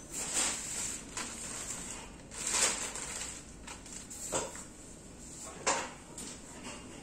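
Clear plastic packing film rustling and crinkling as it is pulled off an office chair's seat cushion, in several short bursts, the loudest about two and a half seconds in.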